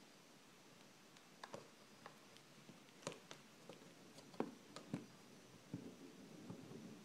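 Faint, irregular taps and clicks over a quiet hiss, starting about a second in and coming more often toward the end.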